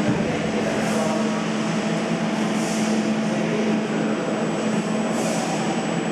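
Workshop machinery running with a steady hum and a constant low tone. Short hisses of air come through about a second in, again near the middle and near the end.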